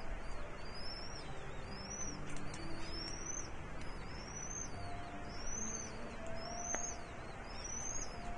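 A bird's high call repeated steadily about once a second, each note rising and then falling, over faint held musical notes.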